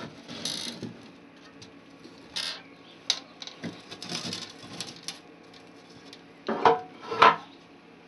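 Handling noises from a metal burglar alarm control panel case: scattered scrapes, rattles and light knocks, then two louder clunks about half a second apart near the end as the hinged front cover is swung shut against the metal back box.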